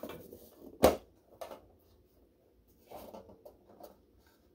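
A book-shaped metal tin being handled and opened: rustling, then a sharp click a little under a second in as the lid comes free, a smaller knock shortly after, and more handling about three seconds in.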